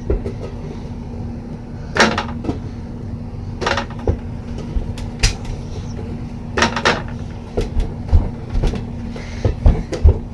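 A small ball striking an over-the-door mini basketball hoop and the closet door it hangs on, with sharp knocks and rattles one to two seconds apart. Softer low thumps follow near the end, and a steady low hum runs underneath.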